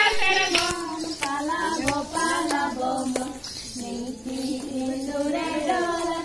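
Several women singing together, with a few sharp taps or claps scattered through the song.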